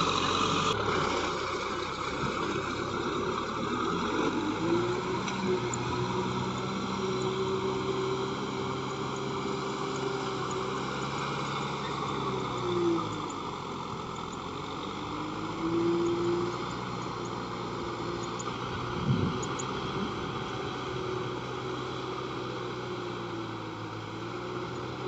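Kubota M6040SU tractor's diesel engine working under load while its rotary tiller churns through wet paddy mud; the engine pitch sags and recovers twice near the middle.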